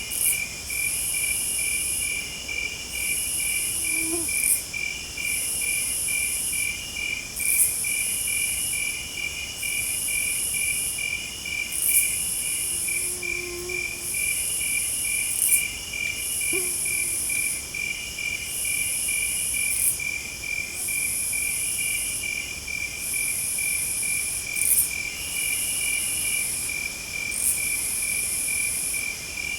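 Night chorus of crickets and other insects: one steady, fast-pulsed high chirping runs under a second, intermittent trill, while a very high-pitched buzzing trill comes in repeated bursts of about a second and a half with short gaps. A few sharp clicks and faint low calls sit in the background.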